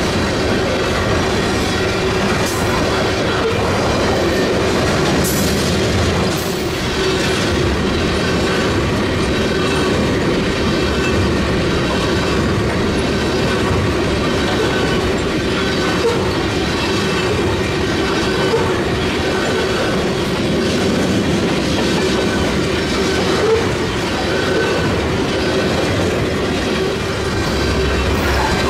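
Freight train tank cars rolling past on steel wheels: a steady, loud rumble with clicking as the wheels cross rail joints.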